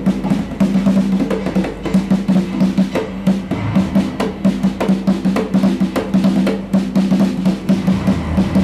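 Fast bare-hand drumming on a wooden barrel hand drum, dense strokes without a break, over a steady low held note.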